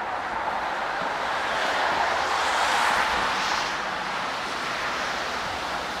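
Steady rushing noise that swells about two to three seconds in.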